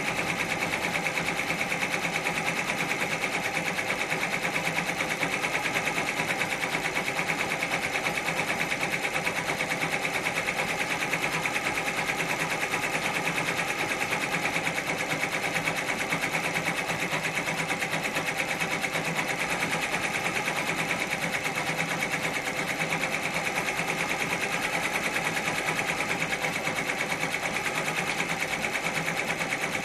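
Multi-needle embroidery machine stitching a freestanding lace design onto water-soluble stabilizer: a fast, even clatter of needle strokes that runs on without a break.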